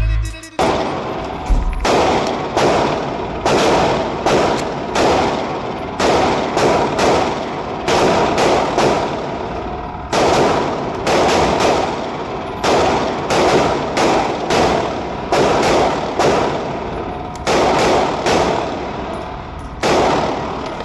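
Canik Mete MC9 9mm pistol fired repeatedly: about thirty shots at an uneven pace of roughly two a second, each followed by a short echo, with brief pauses between strings.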